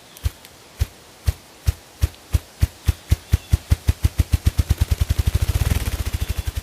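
Ruffed grouse drumming: deep wing-beat thumps, slow at first and speeding up steadily into a rapid roll.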